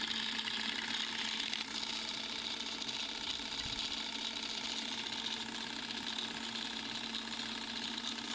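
Vintage film projector running, a steady mechanical whirr with hiss and a low hum under it.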